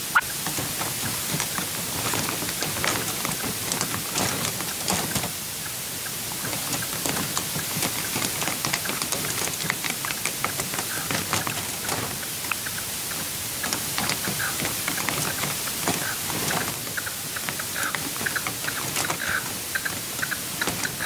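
Steady hiss with a patter of small clicks and ticks. In the last few seconds comes a run of short, soft calls from the caged red-legged partridge decoy.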